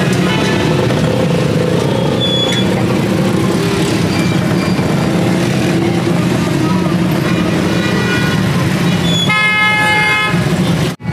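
Busy street background with a vehicle horn honking for about a second near the end.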